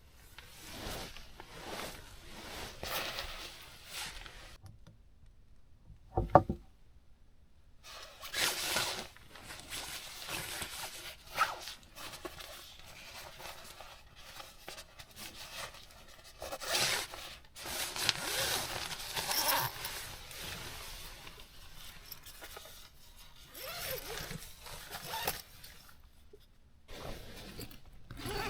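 Rustling and scraping of fabric and gear being handled in irregular bursts, with a single sharp knock about six seconds in.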